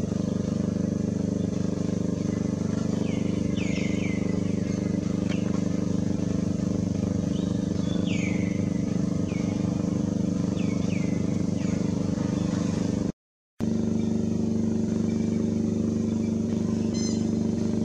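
A motor running steadily with a constant low drone, with short high squeaks that fall in pitch heard several times over it. The sound cuts out completely for a moment about thirteen seconds in.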